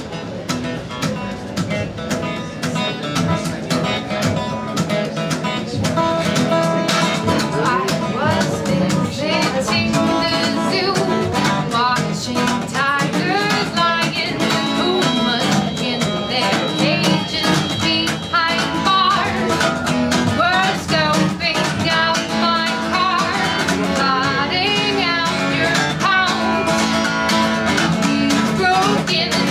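A woman singing to her own steel-string acoustic guitar. The guitar plays alone at first, and from about six seconds in the voice comes in and the whole grows louder.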